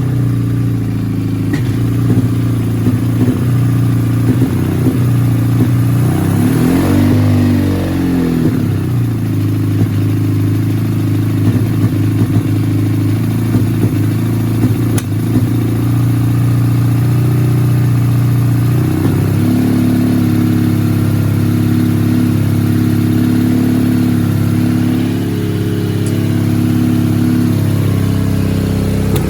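Kawasaki 400 cc inline-four motorcycle engine running during carburettor tuning. It idles steadily, is blipped briefly about seven seconds in with the revs rising and falling, then holds a higher fast idle from about nineteen seconds until it drops back near the end.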